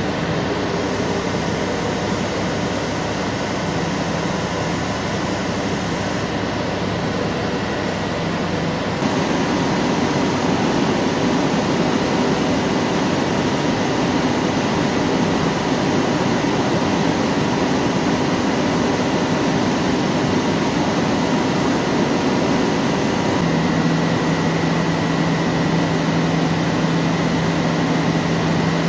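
Large CNC lathe running with a steady mechanical hum and whine. It gets louder and its tones change about a third of the way in, and a new, lower steady tone comes in near the end.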